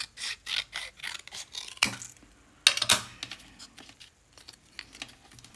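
Large scissors snipping through stiff cardboard: a run of short cuts, with two louder, sharper snips about two seconds and about three seconds in, then only faint small ticks.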